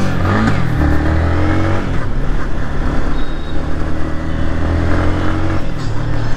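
Yamaha MT15's 155 cc single-cylinder engine pulling away and accelerating. Its pitch rises and drops back as it shifts up, about two seconds in and again near the end.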